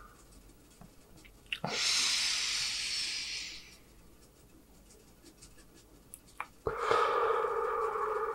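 A man breathing heavily: a long, loud breath out lasting about two seconds, then near the end another loud breath that runs on into a steady hum.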